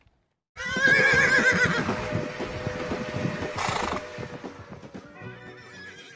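A horse whinnying: one loud, quavering whinny starts about half a second in and trails off over a few seconds. A second, fainter whinny comes near the end.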